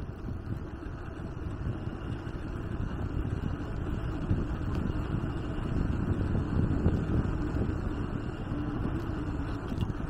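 Wind buffeting the microphone of a camera on a bicycle coasting downhill: a steady low rushing that grows louder toward the middle and eases near the end.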